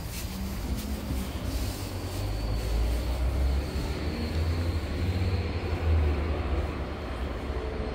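Wind buffeting an outdoor phone microphone: an uneven low rumble that swells and dips.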